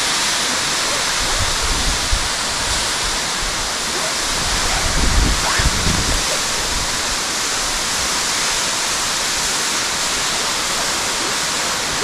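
Steady rush of a tall underground waterfall close by: a dense, even wash of falling water. A few low thumps and buffets come about five seconds in.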